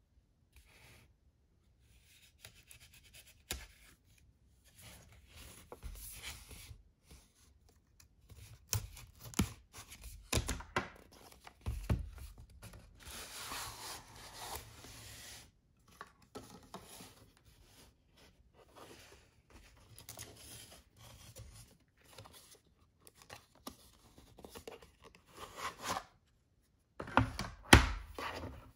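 Unboxing handling sounds: a small folding knife slitting the seal on a cardboard box, then card rustling, scraping and sliding as the box is opened. Near the end come a few sharp knocks as the hard plastic case is handled on the table.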